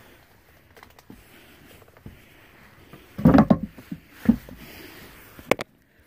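Thumps and knocks of a person clambering over attic joists and boards, loudest a little past the middle, with a single sharp knock near the end; faint rustling in between.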